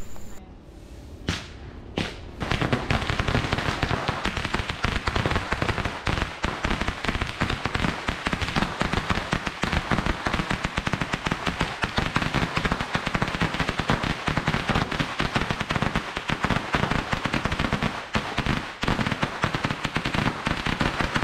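A long string of firecrackers going off in a rapid, continuous crackle of sharp bangs. A couple of single bangs come in the first two seconds before the string runs on without a break.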